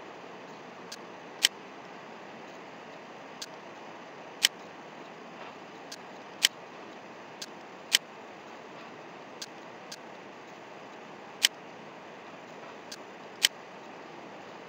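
Computer mouse clicking: about a dozen sharp clicks a second or two apart, six of them louder, most just after a fainter click. Under them runs a steady hiss.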